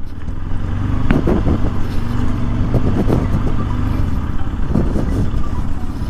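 Bajaj Pulsar RS200's single-cylinder engine running as the motorcycle rides slowly, heard from the rider's seat. A few brief sharper sounds stand out over it about one and three seconds in.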